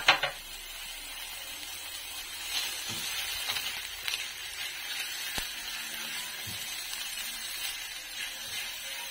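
Sliced onion and garlic sizzling in hot oil in a stainless steel frying pan, with a knock at the very start. From a few seconds in they are stirred with some scraping, and there is a sharp click about five seconds in.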